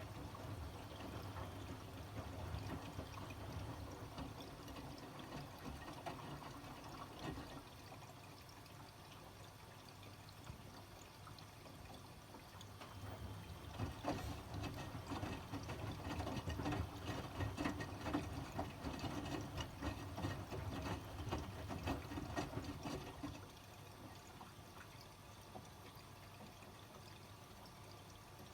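Water sloshing and splashing inside a Miele washing machine's drum during a wash, louder for the first several seconds and again in the middle, with quieter spells between.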